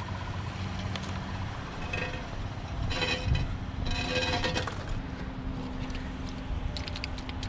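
Child's bicycle being wheeled across asphalt, its rear freewheel hub ticking rapidly in the first second, over a steady low hum.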